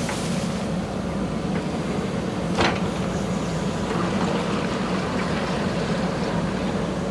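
JCB backhoe loader's diesel engine running steadily at work. A short, sharp noise about two and a half seconds in.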